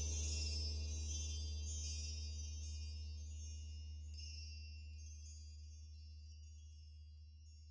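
Closing background music fading out: many high, tinkling chime-like notes over a steady low drone, dying away gradually.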